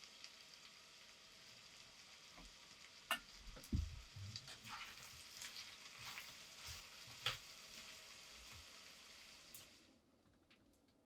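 Food frying in a pan with a steady, quiet sizzle, with a utensil stirring and scraping now and then. The sizzle cuts off abruptly near the end.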